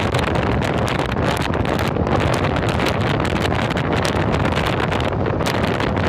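Road noise inside a moving vehicle on wet roads: a steady engine and tyre rumble with a hiss, broken by many irregular sharp ticks and crackles.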